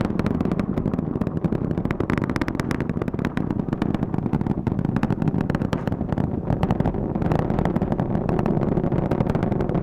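Space Launch System rocket in ascent, its two solid rocket boosters and four RS-25 engines heard as a continuous low rumble full of dense crackling.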